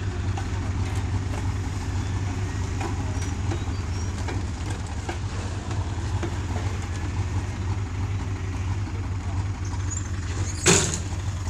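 Steady low rumble of a motor vehicle's engine running, with one brief, sharp, loud noise about a second before the end.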